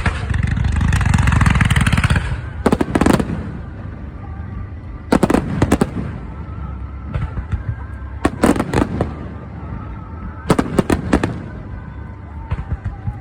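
Aerial fireworks bursting in rapid clusters of several sharp bangs, a cluster about every two to three seconds. A loud, dense rushing noise fills the first two seconds before the bangs begin.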